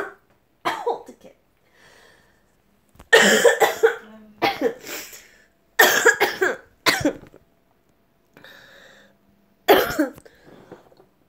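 A woman coughing in repeated fits, several harsh coughs in clusters with short pauses between. The coughing comes from an itchy throat while she is sick.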